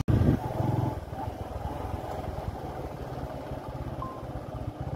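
Motor vehicle engine running as the vehicle sets off, loudest in the first half second, then running steadily under way.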